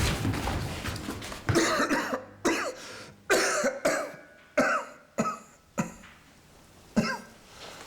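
A person coughing repeatedly: about seven short coughs spread over several seconds, some coming in quick succession.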